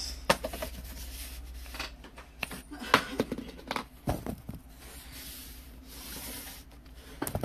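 A quarter flipped and landing on a tabletop, with a sharp click about three seconds in and a few smaller clicks and handling rustles around it.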